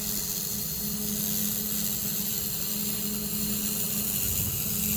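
Air-cooled handheld laser welder with wire feeder running during a weld: a steady hum under a high hiss.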